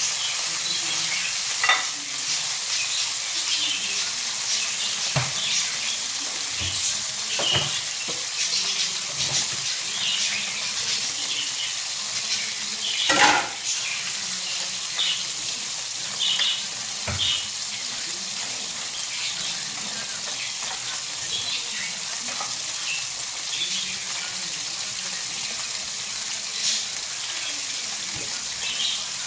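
Oil sizzling steadily in a frying pan on a gas stove, with scattered crackles and spits. A few sharp clanks of a utensil or pan break through, the loudest about 13 seconds in.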